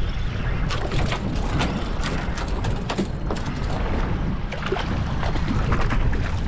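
Mercury outboard running at trolling speed: a steady low rumble under the noise of water along the hull. Scattered sharp ticks come through from about a second in until near the end.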